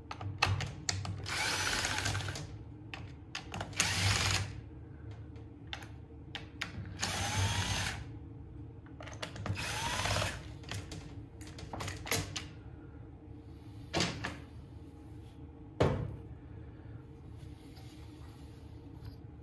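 DeWalt cordless drill/driver spinning out the screws that hold a chainsaw's recoil starter housing, in four short runs with the motor pitch rising as it speeds up. Sharp clicks and knocks follow as the plastic housing is handled and lifted off.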